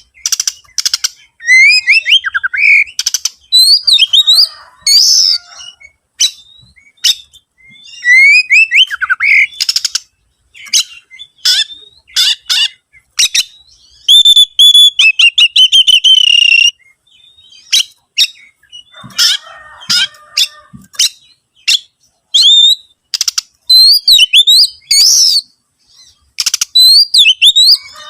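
Oriental magpie-robin singing a loud, varied song: sliding whistles mixed with quick harsh clicking notes, and a buzzy trill about halfway through, in phrases separated by short pauses.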